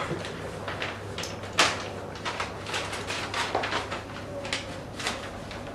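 Paper wrapping on a gift crinkling and rustling in short crackles as it is handled and unwrapped by hand, the loudest crackle about one and a half seconds in.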